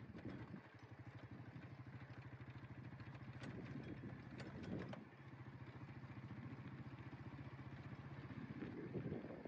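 An engine running steadily at idle, with a fast, even pulse. Brief louder rumbles come about halfway through and again near the end.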